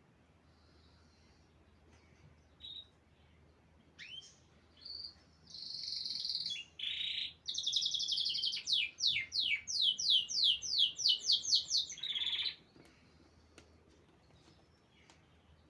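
A small songbird singing one long phrase. It opens with a few short high chirps, holds a brief high note, then runs into a quick series of downward-sweeping whistled notes that speed up and break off suddenly.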